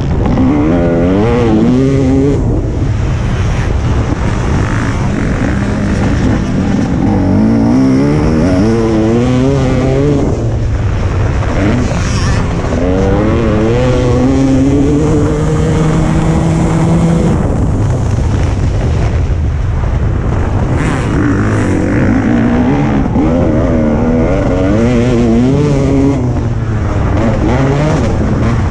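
Motocross bike engine at race pace, heard close from the bike itself, revving up and dropping back again and again, its pitch climbing in repeated sweeps as the rider accelerates out of turns and through the gears.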